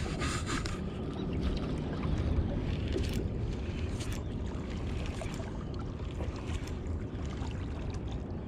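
Wind buffeting the microphone in a steady low rumble, with scattered light clicks and a soft whir from a spinning reel being cranked as a jig is retrieved.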